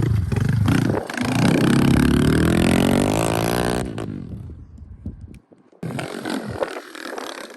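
110cc pit bike engine accelerating hard, its pitch climbing steadily for a few seconds before it fades away. After a short break, an engine is heard again, quieter.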